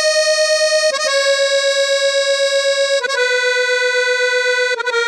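Opening of a cumbia track: a reedy, accordion-style lead holds long notes with a fast waver, stepping down in pitch three times. There are no drums, bass or voice under it.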